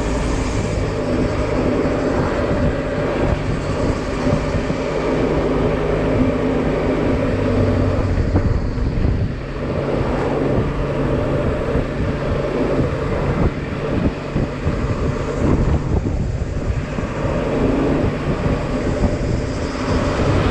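Honda Silver Wing maxi-scooter engine running while riding, its note shifting in pitch a few times, with road and wind noise on the camera's microphone.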